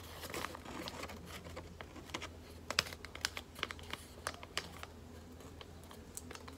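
A sheet of origami paper being folded and creased by hand: irregular small clicks and taps as the paper is pressed and handled, the sharpest a little under three seconds in.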